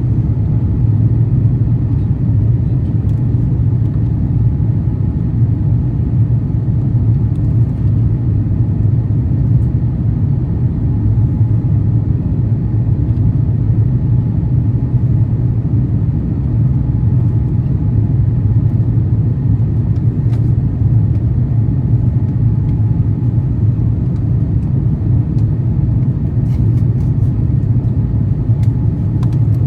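Steady, loud, low cabin rumble inside an Airbus A350-900 airliner: the noise of its Rolls-Royce Trent XWB engines and airflow heard from a window seat, with no change in level.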